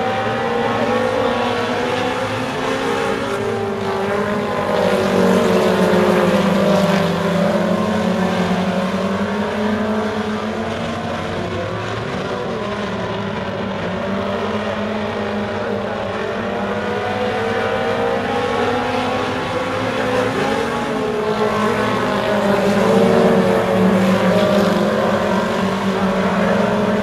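A pack of four-cylinder Super Stock race cars running laps together, several engines at once rising and falling in pitch through the turns. The sound swells twice as the pack passes close, about five seconds in and again near the end.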